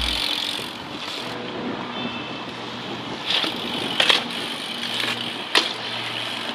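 Mountain bike ridden on concrete: steady tyre and street noise broken by a few sharp knocks, the loudest about four seconds in and another about a second and a half later, as the bike lands and jolts.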